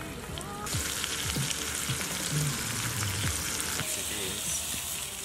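Sausages sizzling in a frying pan: a steady, even hiss that starts suddenly under a second in.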